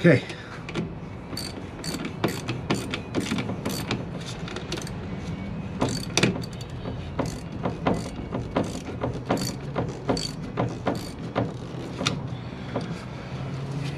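Ratchet wrench clicking in short irregular strokes, about two or three clicks a second, as a nut on the battery terminal is tightened.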